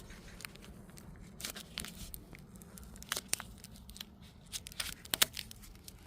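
Irregular crinkling and tearing noises with scattered sharp clicks, the loudest a little past five seconds in.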